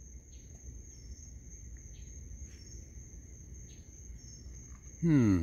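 Night insects, crickets, trilling steadily in a high continuous tone, with a few faint clicks; a man's voice comes in briefly near the end.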